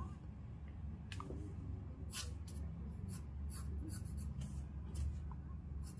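Graphite pencil scratching on paper in a series of short strokes as a line is drawn, over a low steady hum.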